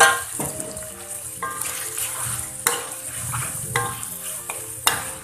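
Chicken, spice paste and fresh tomato pieces sizzling in hot oil in a wok, stirred with a metal spatula that scrapes and knocks against the pan several times, the sharpest knock at the very start.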